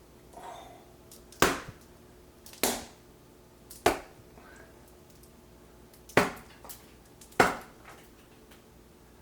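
Foley strikes on a kitchen item for fight sound effects: five sharp chopping hits, spaced about a second apart in a run of three and then two, each a short crack meant to sound like something breaking.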